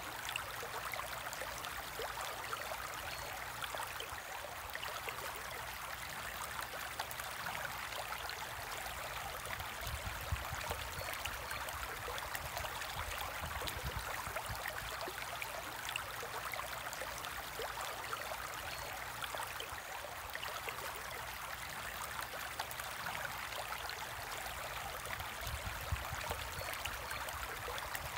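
Steady trickle and bubbling of water circulating in a home aquarium, with many tiny bubble pops throughout.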